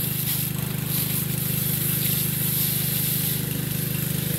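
An engine running steadily, its low hum unbroken, with water hissing from a fire hose sprayed onto burnt wreckage.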